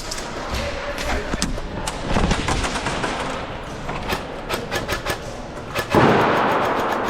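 Airsoft guns firing: scattered single shots, then a quick string of shots. About six seconds in, a loud bang with a decaying hiss follows, from the thrown airsoft grenade going off.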